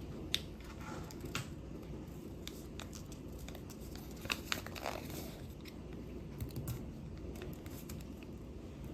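Sheet of paper being handled and folded: scattered crinkles and light taps, with a small cluster of louder ones about four to five seconds in, over a low steady background noise.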